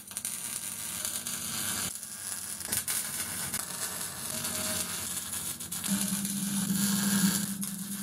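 MIG welding arc crackling and sizzling as steel box-section is welded, in runs broken by a couple of brief pauses.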